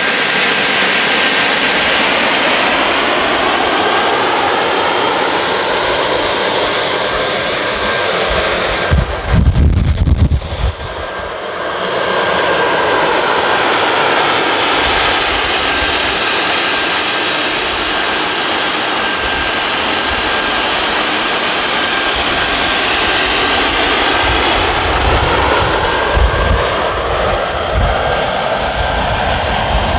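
Kerosene-fuelled micro gas turbine jet engine running steadily: a loud rushing hiss with a thin, steady high whine. About nine seconds in, a loud low rumble breaks in for a couple of seconds.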